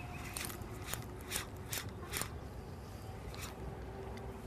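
Spinning reel being cranked as a jerkbait is twitched and retrieved: a string of sharp, irregular clicks that thin out after about two seconds.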